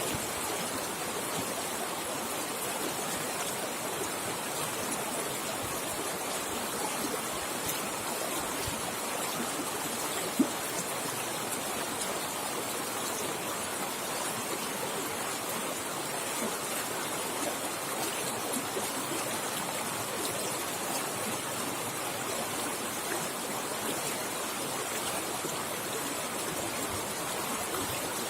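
River water flowing fast over rocks: a steady rushing and splashing, with one brief sharper sound about ten seconds in.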